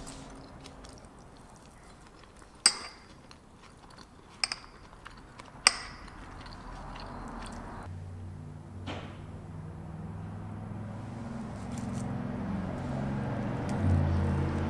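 Fork and knife clinking sharply against a plate three times, with quiet chewing. About halfway through, soft low background music comes in and slowly gets louder.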